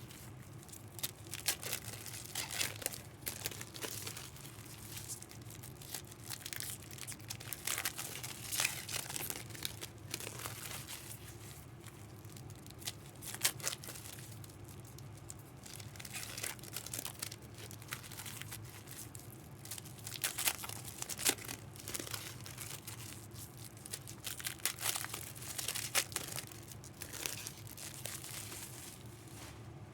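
Trading card pack wrappers crinkling and tearing as packs are opened and handled, in irregular runs of sharp crackles throughout.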